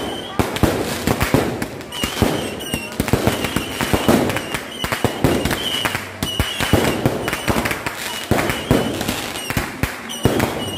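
Aerial fireworks going off in rapid succession: a dense, continuous run of overlapping bangs and crackling pops.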